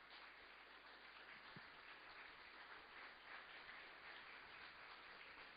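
Near silence: faint, even room hiss with a few soft knocks.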